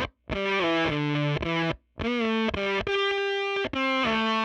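Electric guitar played through a Jext Telez fuzz pedal, heavily distorted, in short riffs of a few notes. There is a brief sharp cutoff to silence about two seconds in.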